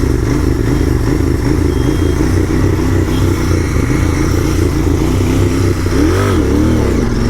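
Royal Enfield Continental GT 650's stock 648 cc parallel-twin engine running at a steady engine speed, then revved twice in quick blips about six seconds in.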